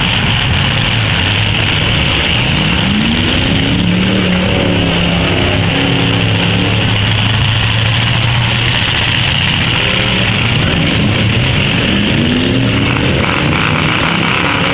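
Demolition derby cars' engines running loudly, the revs rising about two seconds in and again near ten seconds.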